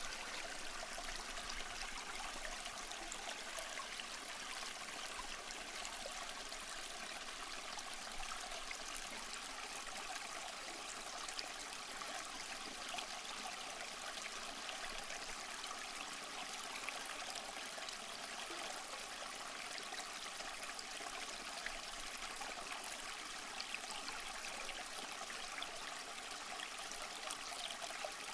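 Steady trickling, running water of an aquarium tank's circulation, an even hiss with no distinct splashes or knocks.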